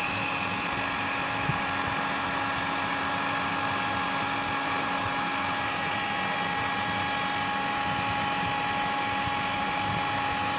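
An 1800-watt electronic hot air gun running after its repair: its fan motor makes a steady whine of several tones over a rush of air. The sound rises sharply at the start and drops away at the end, with a small tap about a second and a half in.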